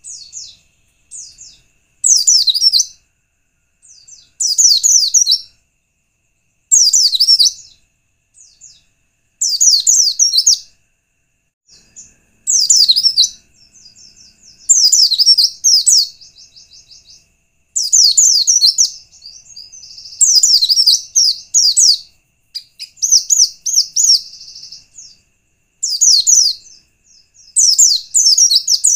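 White-eye (pleci) singing: short, high-pitched warbling phrases of rapid falling notes, repeated every two to three seconds, with faint single chirps between them.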